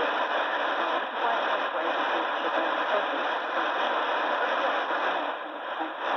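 Radio New Zealand International's shortwave AM broadcast on 13840 kHz, received on a Roberts R861 and heard through its speaker: a voice faint under heavy static hiss, with a brief fade near the end.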